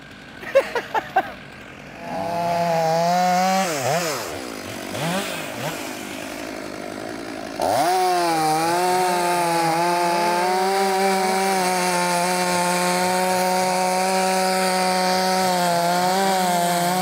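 Two-stroke chainsaw crosscutting a felled poplar trunk. It runs at full throttle from about two seconds in, eases off around four seconds, then revs up again just before halfway and holds a steady high pitch through the cut.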